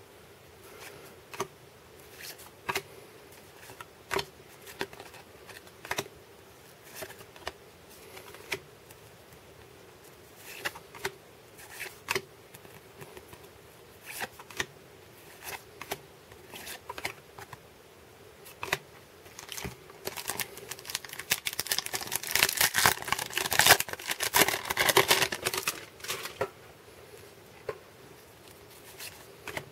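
A stack of 1992 Upper Deck baseball cards being flipped through by hand, each card slid off the stack with a short, sharp snap about once a second. About two-thirds of the way through comes a denser spell of rustling and crackling from the cards and packaging being handled.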